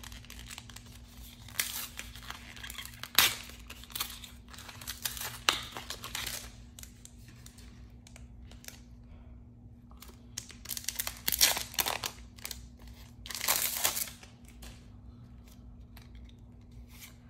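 Foil wrapper of a Pokémon trading-card booster pack crinkling and tearing, with the cards handled. It comes in several separate bursts with quieter stretches between them.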